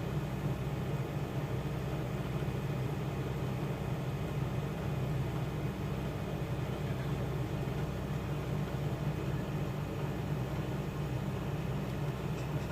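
Steady low hum with a faint hiss, unchanging throughout: constant background noise from an electrical or mechanical source.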